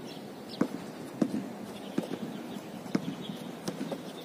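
Basketball being dribbled on a hard outdoor court: five sharp bounces at a steady pace, a little under one and a half a second.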